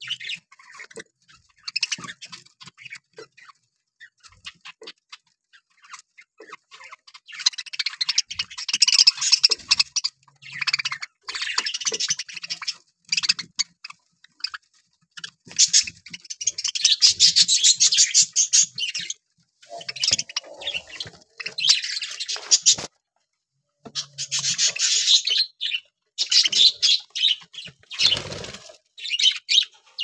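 Flock of budgerigars feeding at a seed tray: a stream of small sharp clicks from beaks cracking and husking seed, joined from about seven seconds in by repeated bursts of high chirping and chattering.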